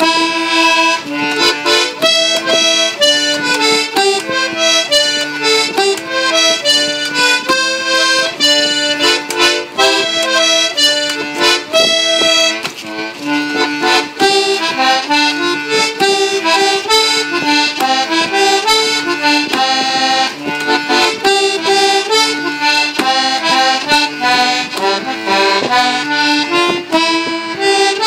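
A small piano accordion playing a tune in quick notes, with lower bass notes sounding beneath the melody.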